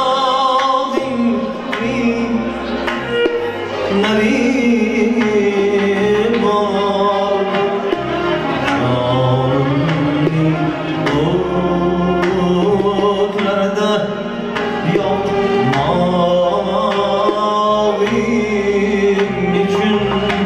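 A male voice singing an Uzbek folk melody live, accompanied by a plucked rubab and regular strokes on a doira frame drum.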